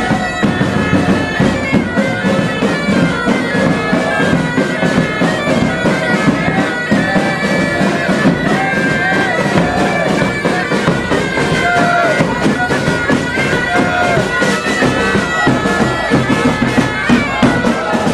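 Pipe band playing while marching: several bagpipes sound a steady drone under the melody, with a bass drum keeping a regular beat.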